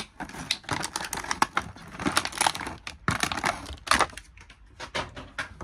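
Plastic toy packaging crinkling and crackling in irregular bursts as it is handled and pulled open.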